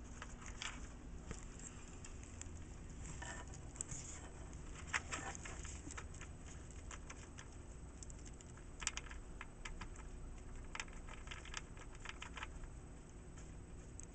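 Faint, irregular clicking and rustling from a hedgehog moving about and anointing himself in pellet bedding, with scattered small clicks and a few quick clusters of them.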